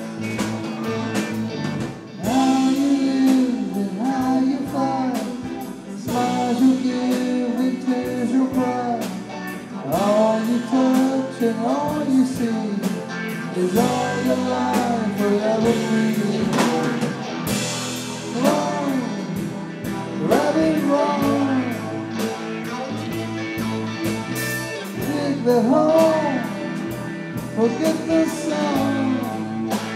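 Live rock band playing, with a man singing lead over guitars and a drum kit.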